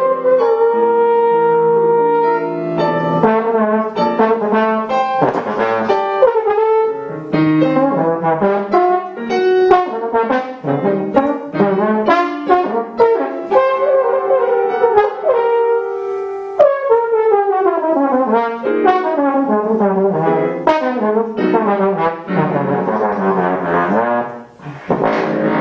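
Tenor trombone playing a solo passage: held notes mixed with quick runs, and a long falling run about two-thirds of the way through.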